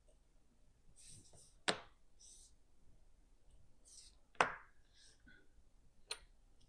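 Small metal tools tapping and clicking against a mechanical watch movement during bench work: three sharp clicks a couple of seconds apart, with soft high rustling of handling between them.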